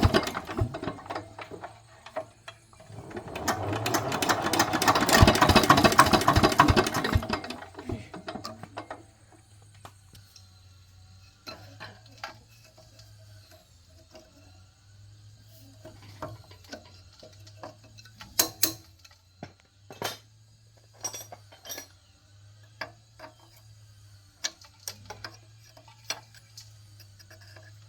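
D8 diesel engine running, with a loud surge lasting a few seconds, then dropping to a faint low hum with scattered sharp clicks and knocks.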